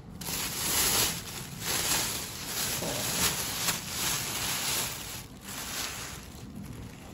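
Thin plastic carrier bag crinkling and rustling in uneven swells as it is pulled open off a plastic food tub, dying down near the end.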